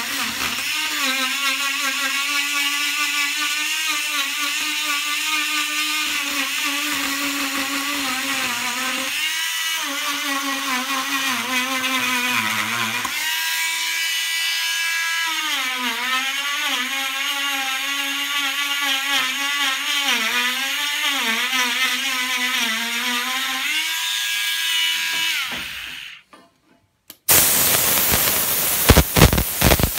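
Hand-held rotary carving tool whining as it grinds a wooden relief, its pitch dipping again and again as the burr bites into the wood. It stops about 26 seconds in, and after a brief silence a loud steady hiss with a few sharp clicks takes over near the end.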